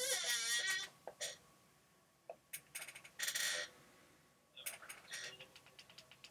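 Faint sounds during a pause: a short rustling, breath-like burst at the start, another about three seconds in, then a run of small sharp clicks near the end.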